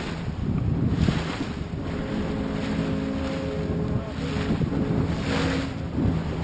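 Wind buffeting the microphone and water rushing and splashing against the hull of a moving inflatable motor tender, the splashes swelling about once a second. A steady motor hum comes in about two seconds in and fades near the end.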